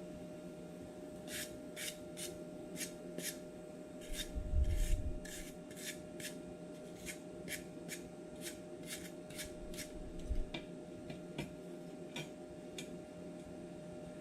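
Repeated rasping scrape strokes of a hand tool, about two to three a second, with a low thump about four and a half seconds in, over a faint steady hum.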